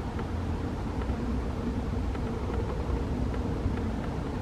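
Steady, distant low rumble of a FedEx Boeing 757 freighter's jet engines as it flies high overhead.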